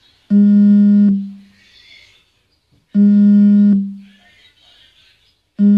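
A low, buzzy electronic beep tone sounds three times, each just under a second long and about two and a half seconds apart.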